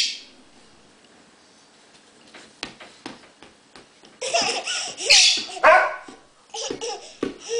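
A toddler laughing and squealing in several loud bursts from about four seconds in, after a quiet stretch with a few light knocks.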